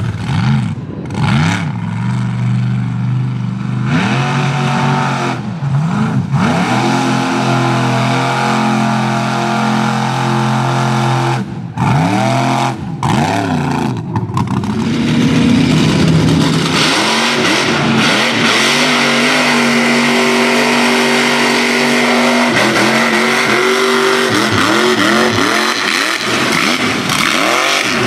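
Supercharged mud-truck engines revving hard again and again, the pitch climbing and falling with each stab of the throttle, with a couple of brief drops near the middle. In the second half a loud steady rush joins in as the tyres spin and fling mud.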